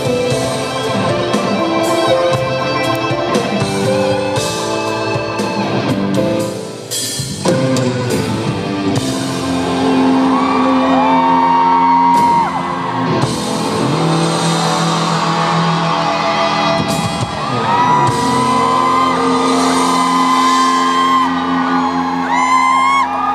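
Live concert music in a large hall: a pop ballad's closing section, with sustained chords and high held notes over them. Audience screams and whoops come in near the end.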